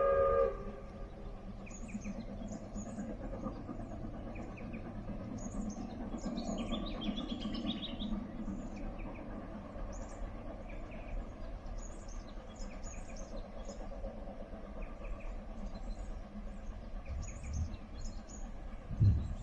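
Small birds chirping on and off over a low, steady background rumble, after music cuts off about half a second in. A low thump comes near the end.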